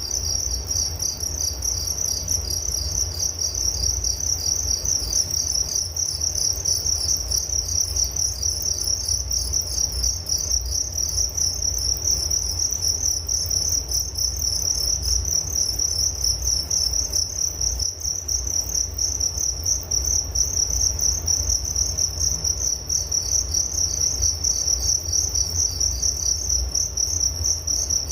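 Crickets chirping in a continuous, rapidly pulsing high trill that holds steady throughout, over a faint low rumble.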